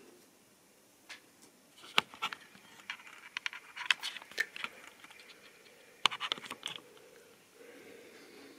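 Handling noise: a series of light clicks, taps and scrapes in two clusters, about two to five seconds in and again about six seconds in. A faint steady motor hum comes back near the end.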